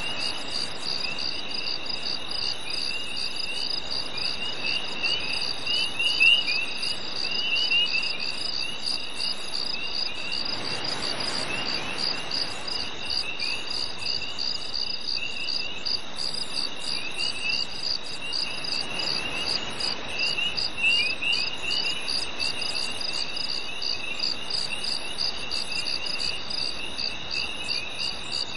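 A summer-night chorus of crickets and other insects: a steady high trill, a regular pulsing chirp just above it, and shorter irregular chirps a little lower in pitch. A soft rushing swell rises and fades in the middle and again about two-thirds of the way through.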